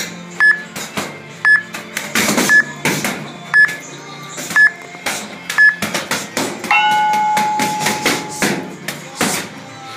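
Gloved punches landing on a heavy punching bag in quick combinations. Short electronic beeps sound about once a second, six times, then a longer, lower tone holds for nearly two seconds in the second half.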